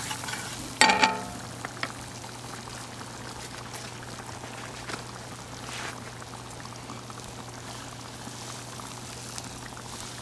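Melted butter sizzling and foaming steadily in a small steel frying pan over a wood fire, with one sharp ringing clank about a second in.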